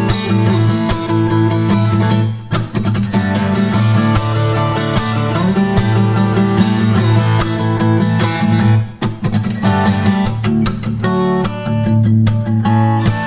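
Background music led by guitar, with plucked and strummed notes.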